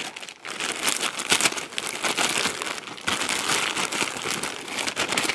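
Clear plastic bag crinkling without a break as it is handled and worked open, a dense run of irregular crackles.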